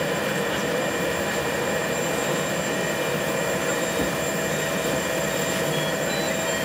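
Steady drone of an aircraft running, heard inside its passenger cabin, with a thin high whine over it.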